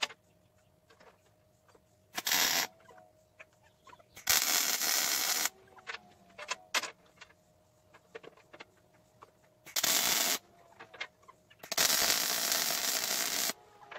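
An electric arc from a hand torch on a steel propane-tank grill body, struck four times in short runs with a sharp start and stop each time. The longest run, near the end, lasts about a second and a half, and there are small clicks and knocks between the runs.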